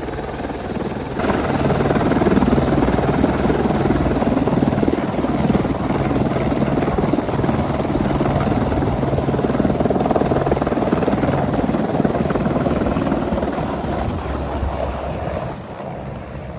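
Helicopter running with a steady rotor and engine drone. It grows louder about a second in and fades near the end.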